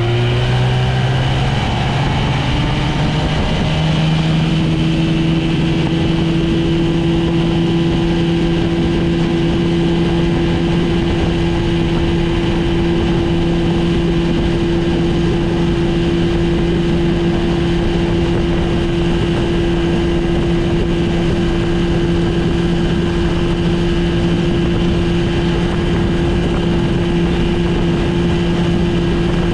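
1971 Evinrude Sportster 25 hp outboard, a 22-cubic-inch two-cylinder two-stroke, revving up over the first few seconds and then running at a steady high pitch as the boat speeds along, with water rushing past the hull.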